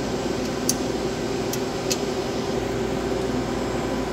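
Steady whir of server-room cooling fans and air conditioning, with a few light clicks in the first two seconds.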